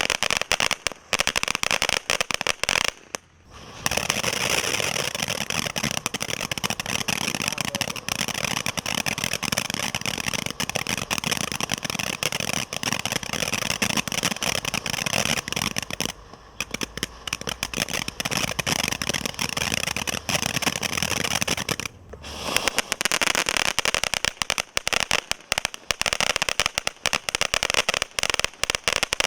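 Consumer garden fireworks crackling densely and continuously. There are short breaks about three seconds in, at about sixteen seconds and at about twenty-two seconds, and the crackle is thicker and more even in the long middle stretch.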